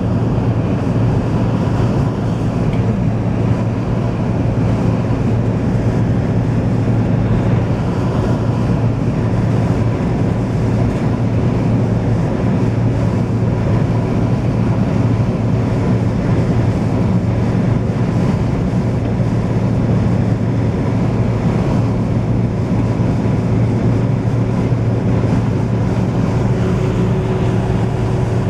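Steady road and engine noise inside a vehicle's cab at highway speed: a low, even drone with a faint steady whine above it.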